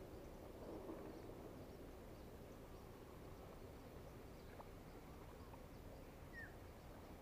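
Near silence: faint outdoor ambience with a few small bird chirps, one short falling chirp about six seconds in.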